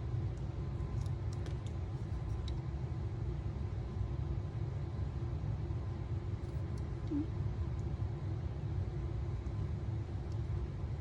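Steady low background hum with a few faint, light clicks from handling the small plastic model pieces and sticker as the last sticker is pressed on.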